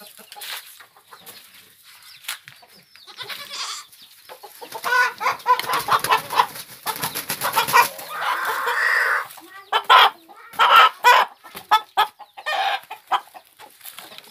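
A local village chicken squawking and cackling in alarm as it is caught and held, with a burst of wing flapping partway through and a run of loud, sharp squawks near the end.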